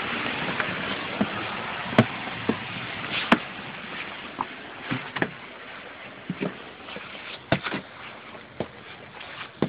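Waterfall rushing, its steady noise fading gradually. Irregular sharp knocks and clicks run through it, the loudest about two and three seconds in.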